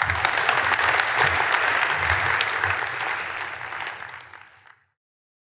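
Audience applauding, dying away over the last two seconds and then cutting off suddenly to silence.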